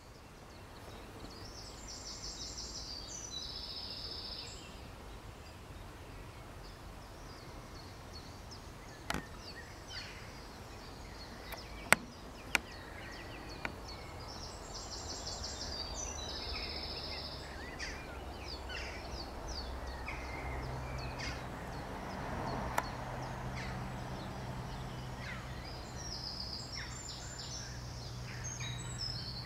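Outdoor background of small birds singing: a high, rapid phrase that drops to a lower pitch partway through, repeated about every 13 seconds, with scattered chirps between. A few sharp clicks come around the middle, and a low steady hum sets in from about two-thirds of the way through.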